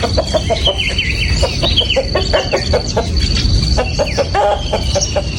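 Chickens clucking in a run of short, repeated calls, with small birds chirping higher up and a steady thin high-pitched tone behind.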